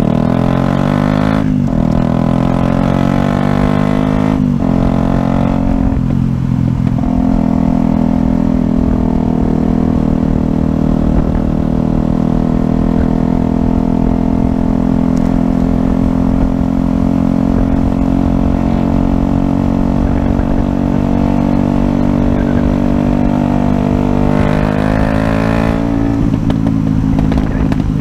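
A 2013 Yamaha YZF-R125's 125 cc single-cylinder four-stroke engine accelerating through the gears: rising pitch broken by upshifts about one and a half and four and a half seconds in, then a steady pitch at cruising speed, with another pitch change near the end. Wind rushes on the helmet-mounted microphone underneath.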